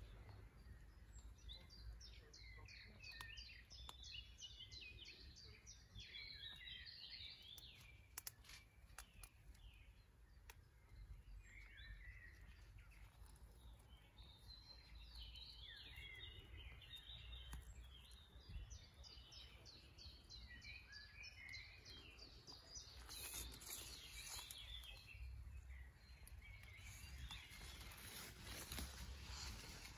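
A songbird singing faintly, short phrases of rapid high notes repeated every several seconds over a low outdoor rumble, with some brief rustling near the end.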